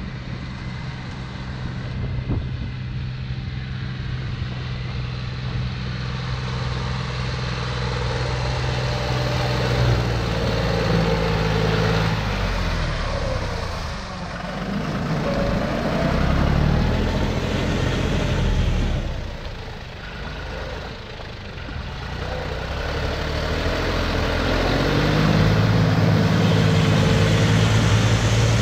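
John Deere tractor's diesel engine running under load as it pulls a rotary tiller through a flooded paddy, with the tiller churning wet mud. The engine note wavers in the middle and grows louder toward the end.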